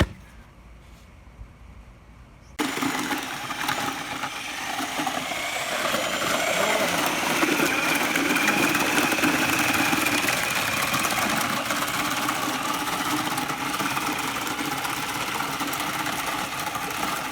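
A motor-driven machine comes in abruptly about two and a half seconds in and runs steadily, with a faint wavering whine over it.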